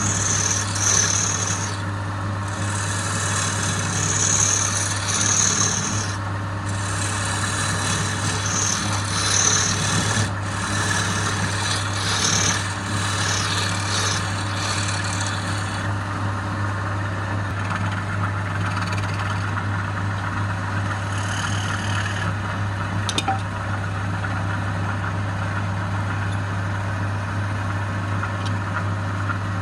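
A wood lathe running with a steady motor hum while the spinning wood is worked with a scraping, rasping sound. The scraping comes in uneven passes over the first half, then runs steadier and quieter.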